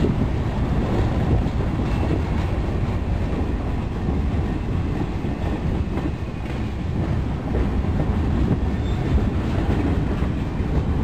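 Freight train boxcars rolling past close by: a steady rumble of steel wheels on the rails with a faint clickety-clack, and a couple of brief faint wheel squeals.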